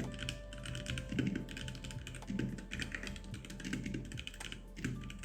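Keys being typed on a HyperX Alloy Origins 60% mechanical keyboard: a steady run of quick key clicks, over chill-house background music.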